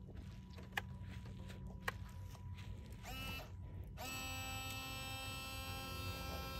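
Model fireboat's electric water pump starting up about four seconds in, then running with a steady buzzing whine as its fire monitors spray water. Before it, a low rumble with two short clicks.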